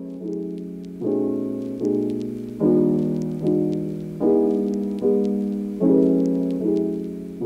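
Background piano music: soft chords struck about once a second, each fading before the next, with faint clicks over them.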